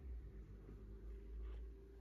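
Quiet room tone with a steady low hum in a small room.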